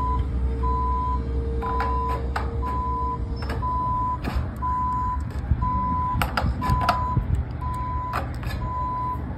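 A vehicle's reversing alarm beeping steadily, one beep about every 0.8 seconds, over a low rumble. Sharp clicks and taps from the sheet-metal ridge cap being handled and scored come in at several moments.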